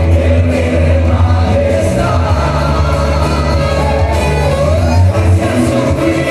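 A Spanish-language worship song played live: a choir singing over a band with heavy, steady bass.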